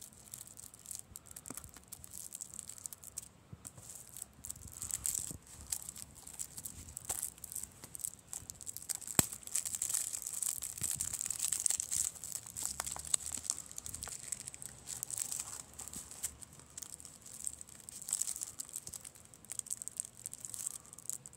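Plastic shrink wrap on a Blu-ray case being picked at, torn open and crinkled by fingers, in irregular crackles and scratchy clicks.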